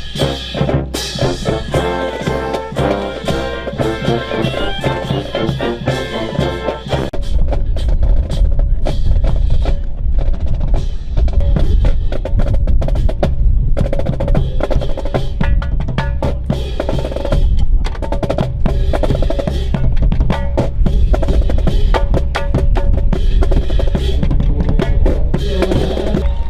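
Music: several pitched instruments for about the first seven seconds, then heavy drums and percussion over a deep bass.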